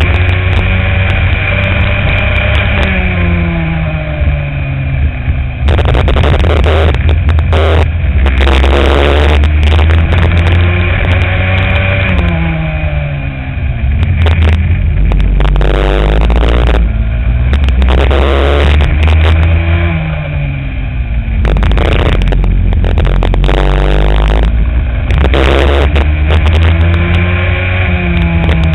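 Racing kart engine heard onboard, its revs falling off into corners and climbing again on the straights, several times over. Bursts of rushing noise come and go over it.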